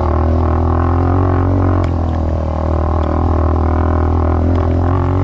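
Dirt bike engine running at a steady pitch, a constant drone while cruising across a muddy field.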